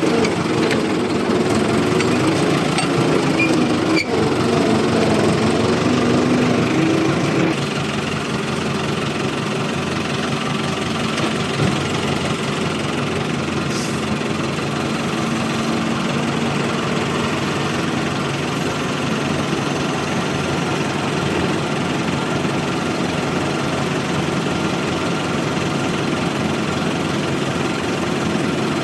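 Excavator's diesel engine running. It works harder and louder for the first seven seconds or so, then settles to a steadier, slightly quieter run.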